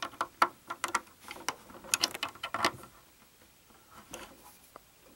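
Hard plastic LEGO pieces clicking and rattling as they are handled, with a quick run of sharp clicks over the first three seconds, then a few faint taps.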